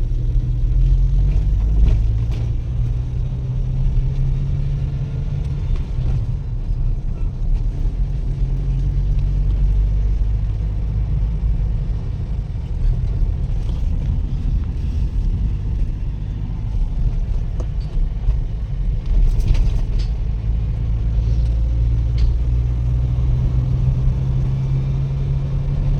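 Steady low rumble of a road vehicle on the move: engine hum and road noise, with a held low drone.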